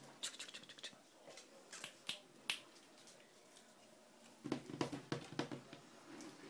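Ferrets scrabbling at a cardboard box on a tiled floor: scattered sharp clicks of claws on tile and scratching at the cardboard, with a denser flurry of scratching about four and a half seconds in.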